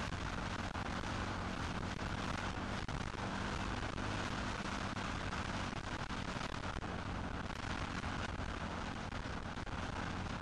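Motocross bike engine running at a steady speed, heard through an onboard camera under heavy wind rush on the microphone.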